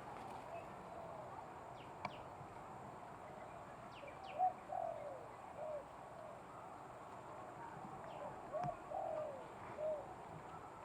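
Aviary birds calling: two short runs of low, arching, coo-like notes, about four and a half and eight and a half seconds in, with a few thin, high, falling chirps from other birds.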